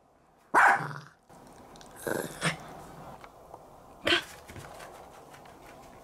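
Toy poodle giving a few short barks, the loudest about half a second in, the others fainter around two seconds and near four seconds.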